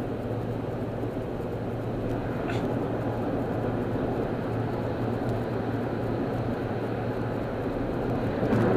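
Steady road and engine noise inside a car cruising at freeway speed: a low hum under an even rush of tyre and wind noise.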